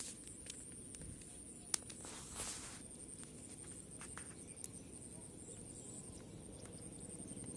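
Faint outdoor ambience with a steady high insect trill and a few sharp clicks, the loudest about two seconds in.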